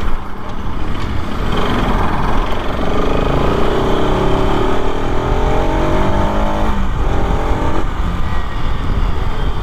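Bajaj Pulsar RS 200's single-cylinder engine through its stock exhaust, accelerating hard: a roar climbing in pitch for several seconds, with a gear change about seven seconds in before it pulls on.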